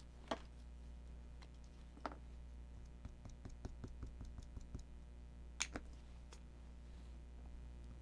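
Light clicks and taps of a stamp being inked on an ink pad and pressed onto card stock: a quick run of small taps in the middle, with a few sharper single clicks around it.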